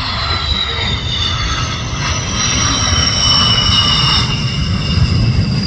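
Sukhoi Su-30MKM's twin AL-31FP turbofans whining at low power during the landing rollout, the high whine slowly falling in pitch over a low rumble.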